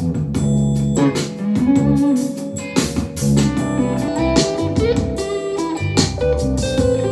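A guitar-led song with a drum beat, played through a portable Bluetooth speaker (a UE Megaboom or a JBL Xtreme) at high volume and recorded from about five feet away.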